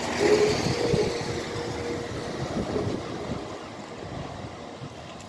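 A train running past and fading away, its rumble dying down, with a steady whine over it for the first two seconds.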